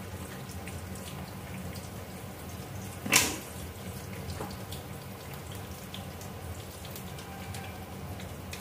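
Faint wet squelching of marinated chicken pieces being mixed by hand in a steel plate, with one sharp knock about three seconds in, over a steady low hum.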